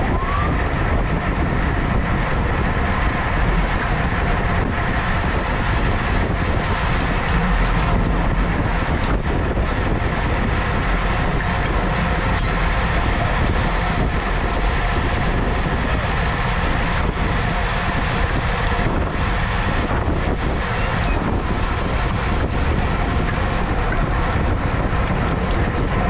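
Steady wind rushing over a bicycle-mounted camera's microphone at racing speed, with the hum of tyres and drivetrains from a pack of road bikes riding close around it.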